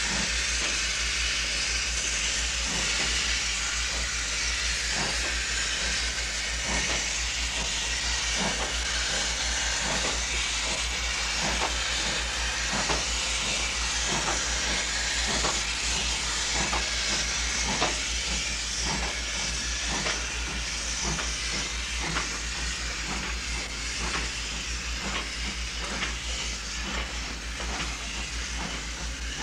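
Steam locomotive working slowly: a steady loud hiss of escaping steam, with regular chuffs about once a second.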